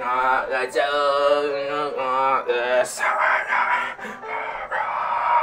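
Music with a voice singing long, wavering notes; about three seconds in, the sound turns busier and noisier, with the sung notes less clear.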